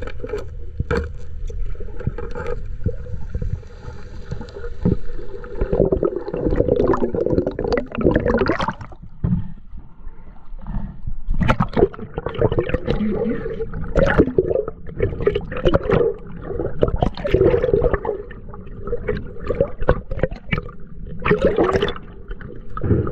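Underwater gurgling and rushing of water and air bubbles against a submerged camera as divers swim and exhale, coming in irregular surges after the first few seconds.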